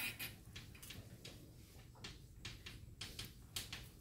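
Chalk writing on a blackboard: a quick, irregular run of light taps and scratches as the words are written.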